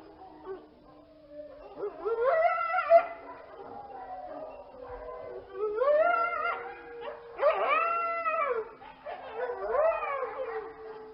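Several canines howling together, overlapping howls that rise and fall, with long steady held notes underneath.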